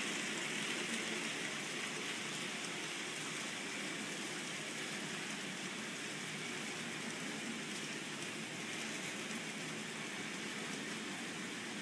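N-scale model train rolling along the layout's track: a steady, rain-like rushing whir of wheels and motor that fades slightly as the train moves off.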